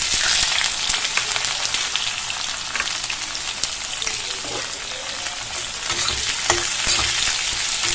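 Sliced onions sizzling in hot oil as they are tipped into a kadhai of tempered whole spices, the sizzle starting suddenly. Later a steel spatula stirs them, with a few short knocks of metal on the pan.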